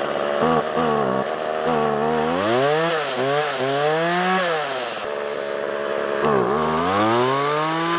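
McCulloch MAC 3818 two-stroke chainsaw, freshly started, being revved again and again, its engine pitch climbing and dropping in several swells, with a long climb near the end.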